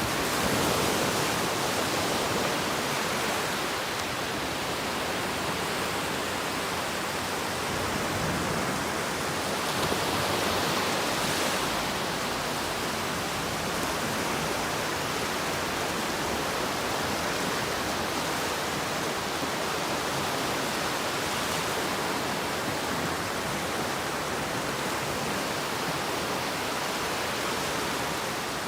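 Ocean waves washing onto a beach: a steady rush of surf, swelling slightly a few times, about a second in and again around eight and ten seconds in.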